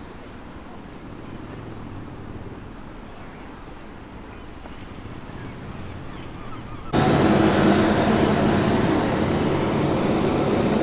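Heavy diesel road-works machinery running at an asphalt-paving site: a low steady rumble, then about seven seconds in a sudden jump to a much louder, close engine drone that holds a steady pitch.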